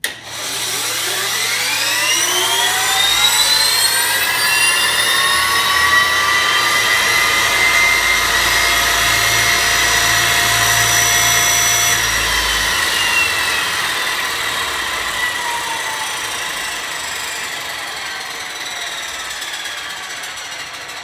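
Gas turbine engine spun up by its starter: a whine that rises over the first few seconds, then holds steady. About twelve seconds in, a low hum cuts out, and the whine slowly falls as the turbine winds down.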